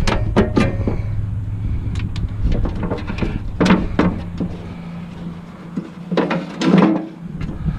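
Metal grill parts being handled and pulled apart: several sharp clanks and rattles, with a longer clatter near the end, over a low rumble that fades out about five seconds in.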